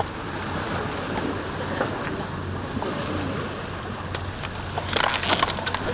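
Dry twigs, reeds and debris crackling and rustling as litter is pulled out of a tangle of driftwood and branches, with a burst of crackles about five seconds in. A steady low hum runs underneath.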